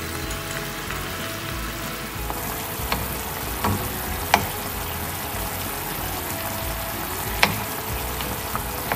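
Miso sauce simmering and sizzling steadily around a fried pompano in a pan. A utensil taps against the pan a few times, loudest about four seconds in and again about seven seconds in.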